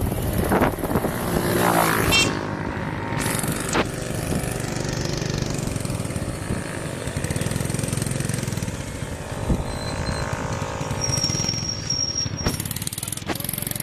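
Motor vehicle engine running as it drives along a road, its pitch rising about a second or two in, then holding steady.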